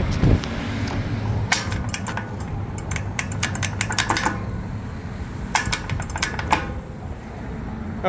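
Pedestrian crosswalk push button pressed by hand again and again, giving sharp clicks in several quick runs, over a low steady traffic rumble.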